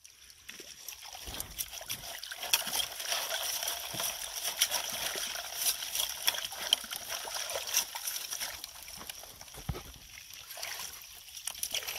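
Water splashing and sloshing through a gold-prospecting sluice box as clay-rich tailings are washed through it, with many small irregular splashes. It builds up about a second in and eases off near the end.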